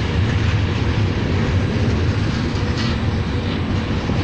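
Trenitalia Frecciabianca passenger train rolling past along the platform: a steady low running noise of the coaches on the rails.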